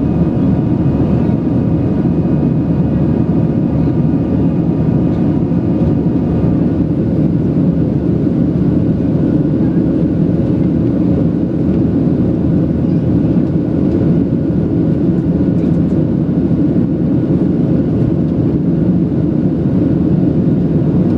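Boeing 737-700 cabin noise during the climb after takeoff: a steady rumble of airflow and its CFM56-7B engines, with a high engine whine over it that fades about six to seven seconds in.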